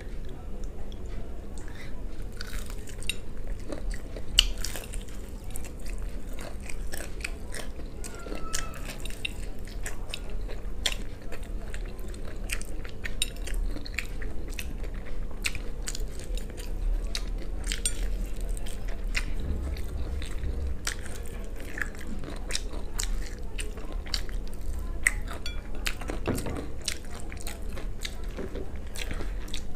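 Close-miked chewing and biting of fried chicken: steady mouth sounds broken by many short crunches of the breaded coating.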